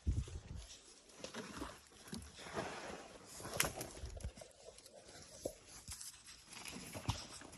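Irregular scrapes, knocks and rustles of a person climbing a large tree, with a few sharper knocks scattered through.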